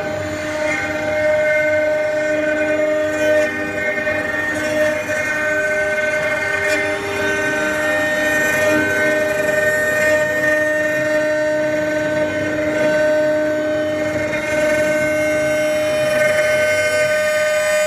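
6090 CNC engraving router cutting into a wooden log turning on its rotary axis: the spindle and stepper motors give a steady whine of several held tones, some of which drop in and out as the axes move.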